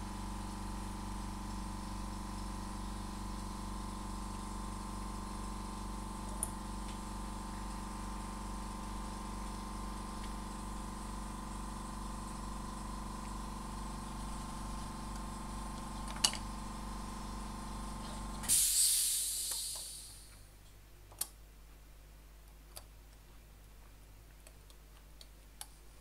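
Workshop air compressor motor running with a steady hum, then cutting out abruptly about two-thirds of the way in with a short burst of hissing air that fades away. A few faint light clicks follow.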